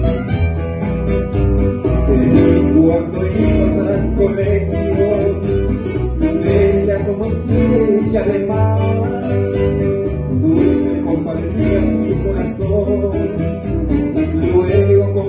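A bolero played live on two nylon-string acoustic guitars over an electric bass, with a male voice singing into a microphone from a few seconds in.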